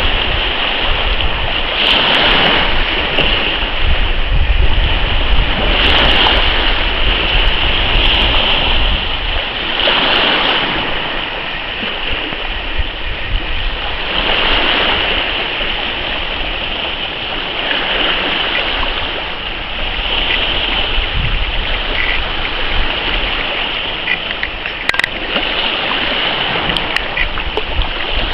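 Choppy sea water sloshing and lapping, swelling roughly every four seconds. Wind rumbles on the microphone through the first third.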